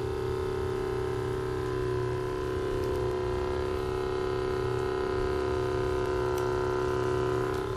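A steady electric hum at one fixed pitch, with overtones, like a small motor running without a break.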